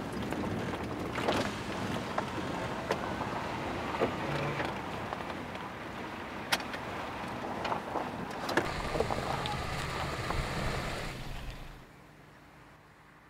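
Cabin noise of a Chevrolet pickup driving on a rough dirt road: a steady rumble of engine and tyres with scattered knocks and rattles. It cuts off suddenly near the end.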